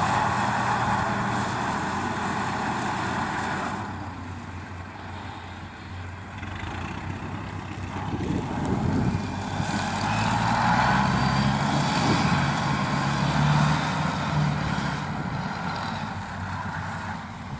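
Engine of a homemade crawler rice-hauling tractor running, loud at first, easing off about four seconds in, then building up again from about eight seconds and falling back near the end.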